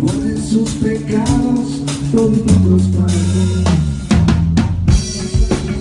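Live band playing at a sound check: a drum kit keeping time with kick and snare over held bass notes.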